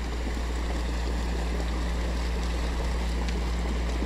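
ATV engine running steadily with a low, even hum as the quad crosses a river afloat, over a constant wash of water noise.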